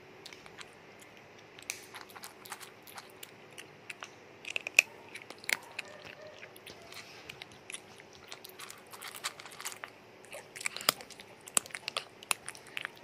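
A rat gnawing and chewing a piece of raw pumpkin: irregular crisp bites and crunches, coming in quick clusters about a third of the way in and again near the end.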